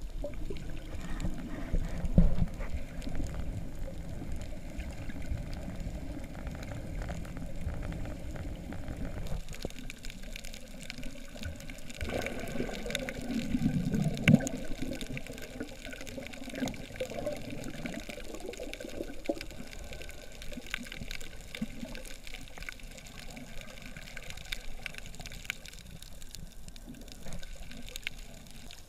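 Muffled water noise heard underwater through a GoPro housing while snorkelling over a reef: a steady low rumble of moving water with scattered faint clicks, and a louder stretch of bubbling and gurgling near the middle.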